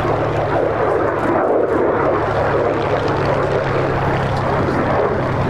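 Lockheed Martin F-35A Lightning II's single F135 turbofan, a steady loud jet roar as the fighter flies past, with a steady low hum underneath.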